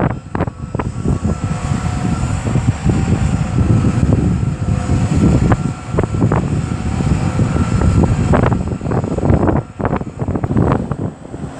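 Tractor engine running in the field, with wind buffeting the microphone so the loudness rises and falls unevenly.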